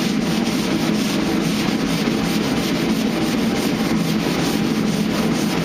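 Hand sanding with 120-grit paper on a flat sanding block, rubbed steadily back and forth over a truck body panel.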